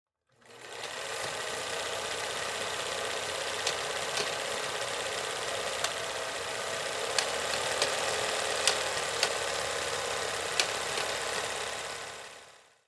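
Title-sequence sound effect: a steady mechanical whirring hiss that fades in, holds and fades out, with sharp clicks scattered irregularly through it.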